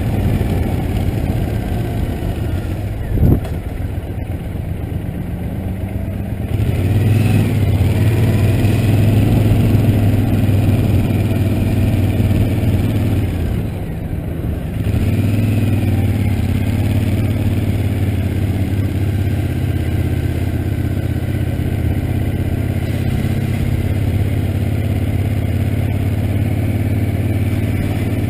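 Motorcycle engine running as the bike is ridden, heard from the handlebars. There is a single sharp thump about three seconds in. The engine eases off, picks up again about six or seven seconds in, dips briefly around the middle as the bike slows for a turn, then runs steadily.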